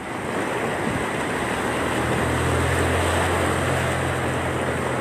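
Floodwater rushing fast across a road, a dense steady rush of noise. From about two seconds in, the low steady hum of a pickup truck's engine joins as the truck drives through the water.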